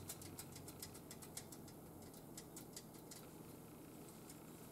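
Faint, irregular light clicking, several ticks a second and thinning out after the first couple of seconds: the small linkage of an O scale model car's shark-fin-type tilting mechanism being rocked by hand.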